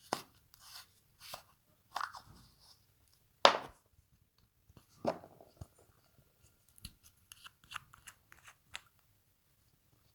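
Slime being handled, squished and stretched, giving a series of sharp wet crackles and pops, the loudest about three and a half seconds in, then a run of smaller clicks near the end.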